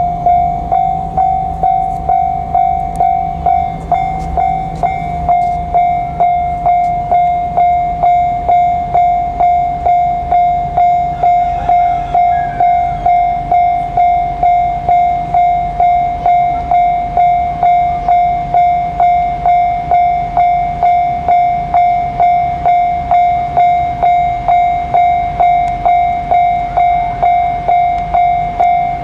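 Japanese level-crossing alarm ringing, a single bell-like tone struck about one and a half times a second without a break. A train's low rumble runs underneath.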